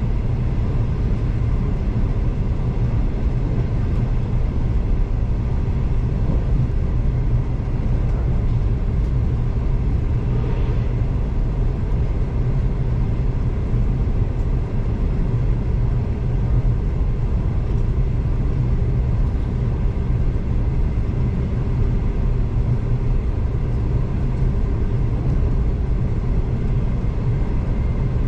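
V/Line passenger train running along the line, heard from inside a carriage: a steady low rumble with faint steady tones above it.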